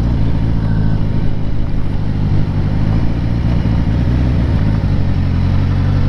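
Kawasaki Concours 1000 (GTR1000) motorcycle's inline-four engine running with a steady note as the bike rides along.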